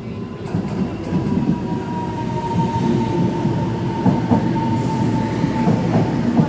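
Taiwan Railway EMU700 commuter train pulling into the station. The cars rumble and knock over the rails, with a steady high whine that falls slightly in pitch as the train slows and fades out shortly before the end.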